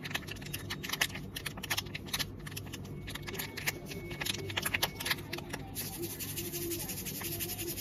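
Teazen kombucha powder stick sachet crinkled and tapped between the fingertips: a run of sharp crackles and clicks, turning to a steady rubbing hiss in the last couple of seconds.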